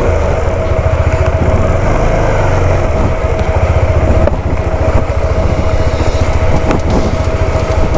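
Motorcycle engine running steadily under way, with a fast, even low throb of firing pulses and a steady high tone over it.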